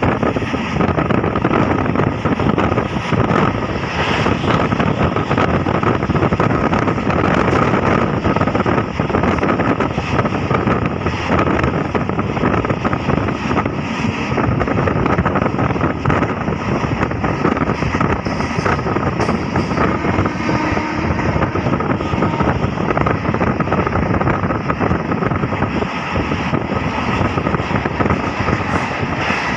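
Passenger train running at speed, heard from an open coach door or window: a steady, loud rush of wheel and rail noise with wind buffeting the microphone.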